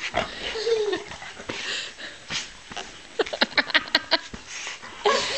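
A dog right at the microphone, snuffling and moving about, with a short falling whine about half a second in and a quick run of clicks about three seconds in.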